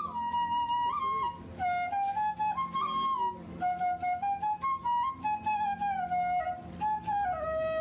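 Background music: a flute-like melody that steps and glides between notes, over a low steady accompaniment.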